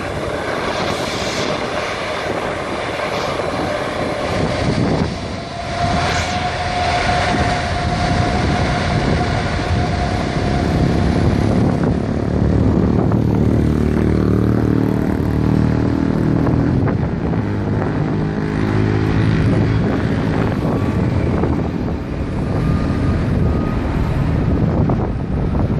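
Jet airliner engines running as the aircraft moves along the runway, a continuous rumble that grows heavier from about midway, with a brief steady whine early on.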